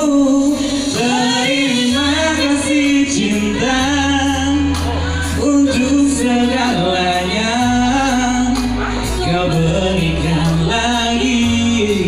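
A slow ballad played live on an electronic keyboard through a PA: a wavering melody line over held chords, with the bass note changing every couple of seconds.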